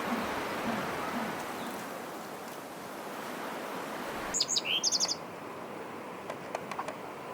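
Bird chirping: a quick cluster of high, sharp chirps lasting under a second, a little past the middle, after a steady rushing background noise cuts out.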